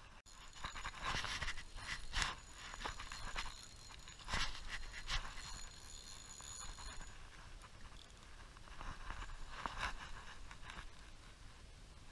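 Spinning reel being cranked while fighting a hooked bass on a bent rod, with a faint high whine for the first several seconds and irregular scraping and rustling of handling.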